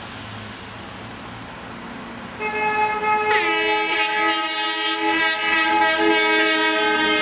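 Vehicle horn sounding long, sustained multi-tone blasts that start about two and a half seconds in, with a pitch drop about a second later and brief breaks between blasts.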